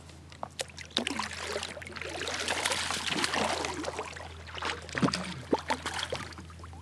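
A hooked fish splashing at the surface beside a kayak as it is reeled in, loudest in the middle, with a few sharp clicks and knocks of the rod and reel.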